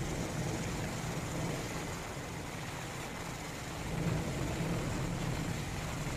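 Steady low engine rumble with wind hiss, like the inside of an aircraft in flight.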